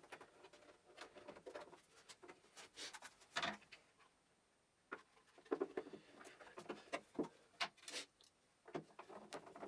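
Hands handling and fitting plastic vacuum-cleaner housing parts during reassembly: scattered small clicks, knocks and rustles, with one louder knock about three seconds in. The motor is not running.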